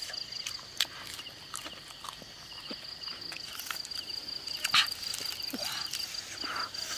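Insects chirring in a steady, fast-pulsing high trill, with scattered sharp clicks and small smacks over it. The loudest click comes about five seconds in.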